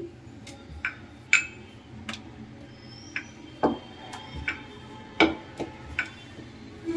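Metal cookware and utensils being handled at a gas stove: about nine short, sharp clinks and knocks spread over several seconds, the loudest about a second and a half in and again about five seconds in.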